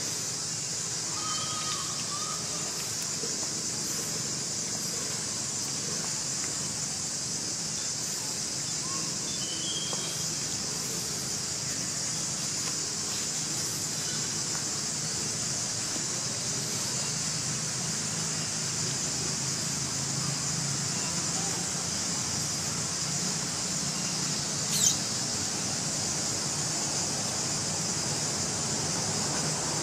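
Insects droning steadily at a high pitch, with a few faint bird chirps. About 25 seconds in, one short, sharp squeal falls in pitch and is the loudest sound.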